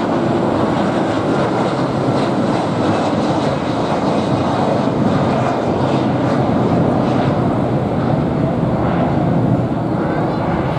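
Twin jet engines of an Airbus A330-300 at takeoff thrust as the airliner climbs out just after lift-off: a loud, steady rushing jet noise.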